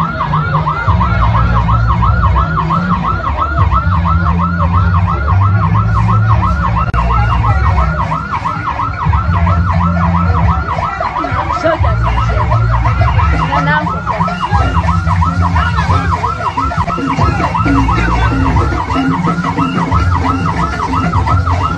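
A rapidly warbling siren tone runs steadily over loud music with a heavy, thumping bassline.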